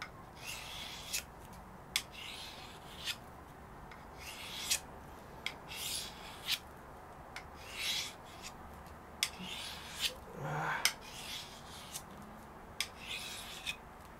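Freehand sharpening of a Pirat Starshina knife's 40Kh13 stainless blade: the edge is scraped across a sharpening stone in quick rasping strokes, about one to two a second, some ending in a small click.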